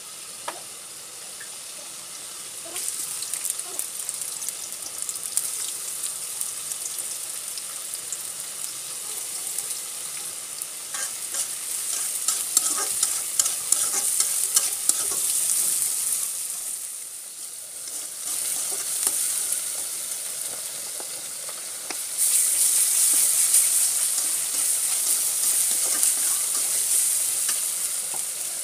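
Sliced onions sizzling as they fry in hot oil in a black iron karai, with a metal spatula scraping and clicking against the pan as they are stirred. The sizzle starts abruptly a few seconds in, dips briefly past the middle, and gets louder near the end.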